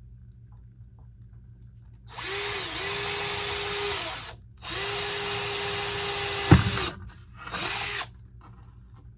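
Small electric drill running in three bursts, two long and one short, each spinning up and winding down, probably boring a hole in the plastic crossing-gate parts. Its pitch dips briefly under load early in the first burst, and a sharp knock comes near the end of the second.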